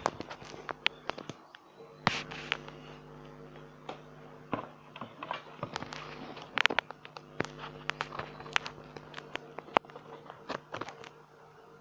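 Scattered sharp clicks and knocks, like objects being handled, over a steady low hum that starts about two seconds in and stops near the end.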